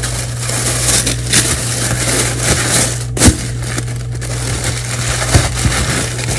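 A sheet of paper wrapping crackling and rustling as it is unfolded by hand, with a sharp snap about three seconds in. A steady low hum runs underneath.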